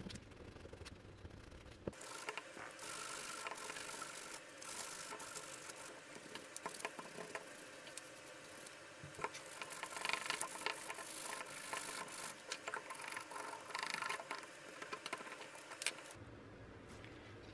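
Close-miked handling noise of gloved fingers picking and scraping at an electric drill's motor armature, with many small clicks and rattles of metal parts. It starts suddenly about two seconds in and stops suddenly near the end.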